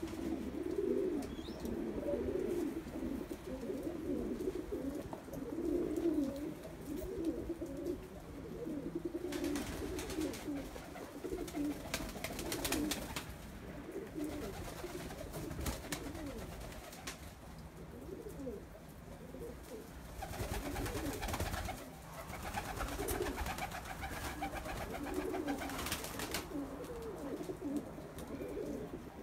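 A flock of domestic pigeons cooing, many low, warbling coos overlapping without a break. Two longer stretches of hiss-like noise run under the cooing, one around the middle and one later on.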